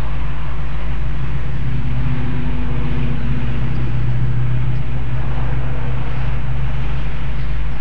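Wind rushing through an open convertible and buffeting the phone's microphone, over steady road and engine noise from the moving car. An engine hum swells through the middle.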